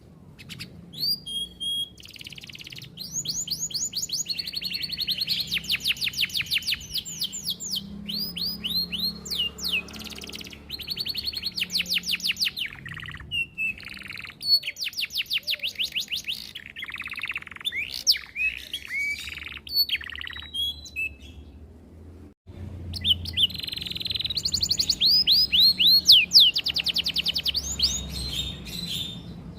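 Canary singing a long, varied song of rapid trills and rolls, fast runs of repeated notes with short pauses between phrases.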